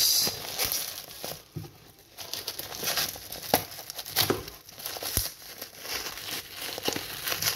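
Black plastic courier bag crinkling and rustling as it is pulled and torn open by hand and picked at with a screwdriver, in irregular crackling bursts with a sharp click about three and a half seconds in.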